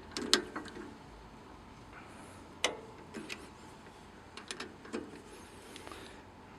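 A few sharp, scattered metal clicks and knocks from hand tools working on an airgun regulator held in a vise grip and chuck. The loudest come about a third of a second in and near the middle.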